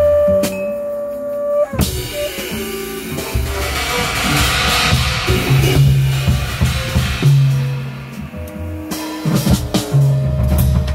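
A small band playing: drum kit with bass and guitar, the bass holding long low notes under the drums.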